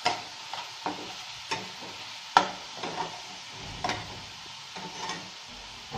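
Ghee sizzling in a stainless steel kadai as ginger garlic paste and whole spices are sautéed. A spatula scrapes and knocks against the pan at irregular intervals, with the sharpest knock a little past two seconds in.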